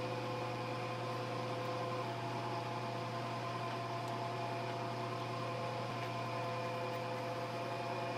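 Lathe running, a faint, even hum with a few held tones, one of which stops about two seconds in, as an automatic geometric die head threads a small steel screw blank.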